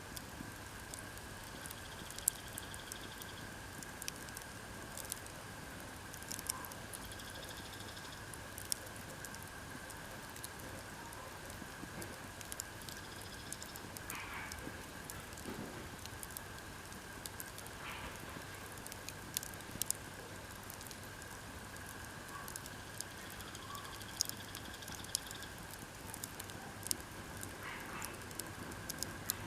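Campfire of split firewood crackling, with irregular sharp pops and snaps over a soft hiss.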